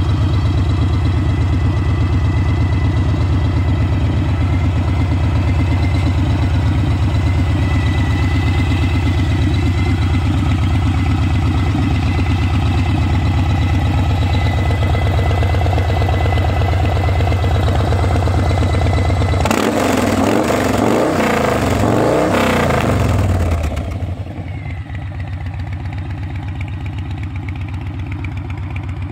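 Yamaha Raider's 1854 cc air-cooled V-twin running through a Freedom Sharp Curve Radius 2.5-inch aftermarket exhaust. It idles steadily, is revved up and down a few times about two-thirds of the way in, then settles back to a quieter idle.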